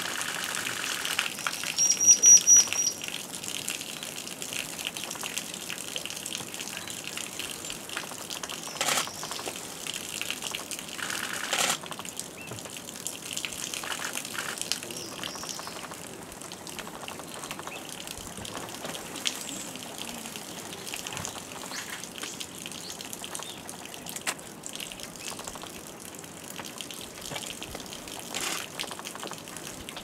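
Small birds, red-tailed minlas and blue-winged minlas, bathing in a shallow pool and splashing now and then over steadily trickling water. About two seconds in, a bird gives a quick run of high chirps.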